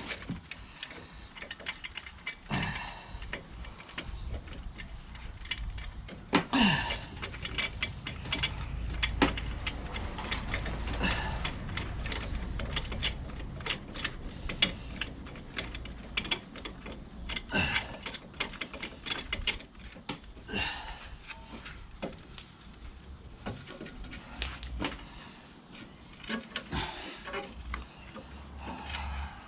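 Metal hand tools clicking, knocking and ratcheting at irregular intervals, with a low rumble in the middle, as a tool is set up to compress a front brake caliper piston.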